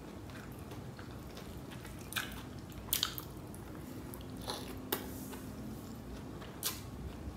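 Close-miked chewing of biryani rice and chicken, with several sharp wet mouth smacks.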